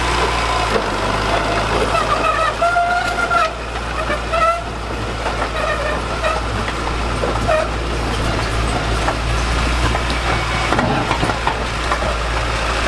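Diesel engine of heavy construction machinery running steadily with a deep, even hum.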